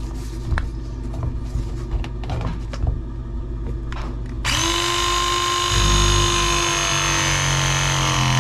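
RIDGID RP 241 compact press tool crimping a press fitting onto copper pipe. A few light clicks and knocks come first as the jaw is set, then about halfway in the motor starts with a steady whine. The whine sinks a little in pitch and grows louder and deeper as the jaws close under load.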